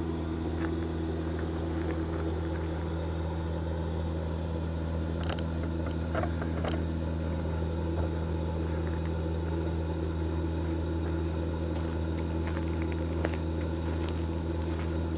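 Ekomobiili wood gasifier running during its preheating, a steady low mechanical hum with a faint hiss. A few faint clicks come about five to seven seconds in.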